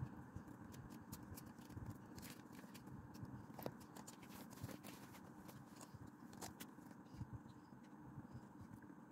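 Faint scratching of a pencil and then a highlighter marker on paper, with a few light clicks and taps, the loudest about three and a half seconds in.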